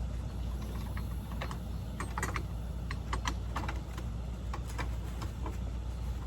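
Scattered, irregular light clicks and taps from handling the clown animatronic's plastic parts and costume, over a steady low hum.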